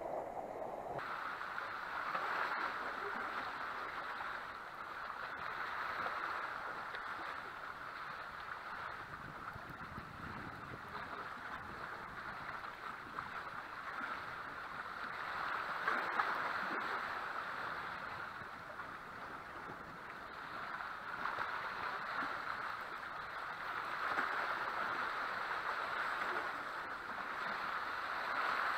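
Sea waves washing and swirling around the rocks at the foot of a breakwater, swelling and easing every few seconds.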